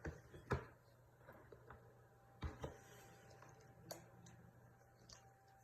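Near silence with a low hum and a few faint, short clicks and taps, about half a second in, twice around two and a half seconds, and once near four seconds.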